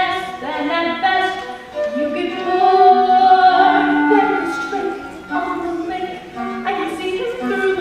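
A female voice singing a musical-theatre song, holding long sustained notes.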